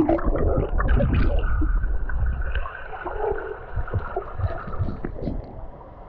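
Muffled underwater sound picked up by a submerged camera: water sloshing and bubbling around the housing, with a heavy low rumble for the first two or three seconds that then eases into softer gurgling and ticks.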